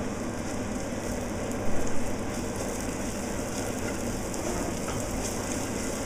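Chopped onion in a little oil sizzling steadily in an aluminium saucepan as the soffritto starts to fry, stirred with a wooden spoon; the sound is briefly louder about two seconds in.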